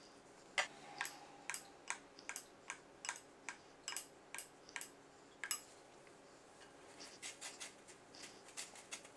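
A run of light clicks, about three a second, from a metal spoon tapping a glass bowl as batter is spooned over skewered chicken, then soft crunching near the end as the battered skewer is pressed into panko breadcrumbs in a steel tray.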